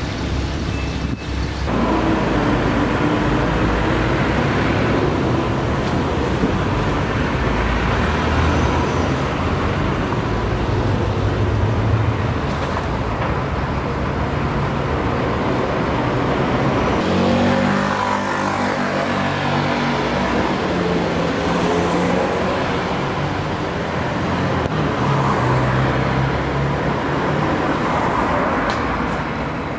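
Street traffic: a steady wash of vehicles running and passing, with a heavier engine hum changing pitch about two-thirds of the way through.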